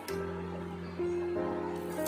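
Soft background instrumental music with held notes that change every second or so.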